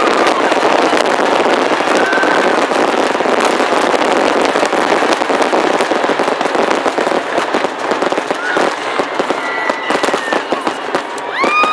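A dense, continuous barrage of aerial firework shells bursting, with crackling and overlapping bangs. It thins out to scattered bangs in the last few seconds, and a crowd starts cheering and whistling right at the end.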